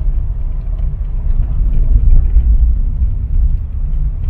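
Low rumble of a car driving slowly along a gravel road, heard from inside the car.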